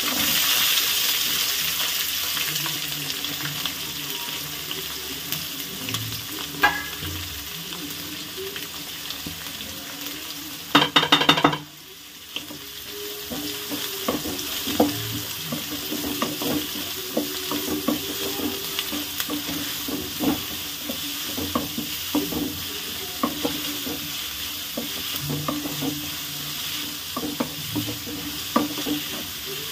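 Chopped onions sizzling in hot oil in an aluminium kadai, the hiss loudest at the start and easing off as they cook. A wooden spatula stirs them, scraping and knocking against the pan, with a brief fast clatter about a third of the way in.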